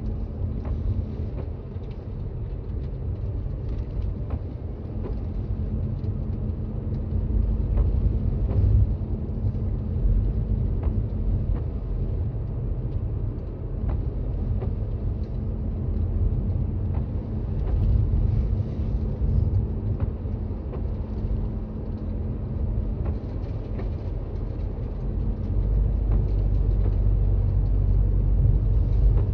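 Toyota Raize compact SUV driving on a snowy road, a steady low rumble of tyres and road noise with a constant low hum. The rumble swells around eight seconds in, again around eighteen seconds, and grows louder near the end.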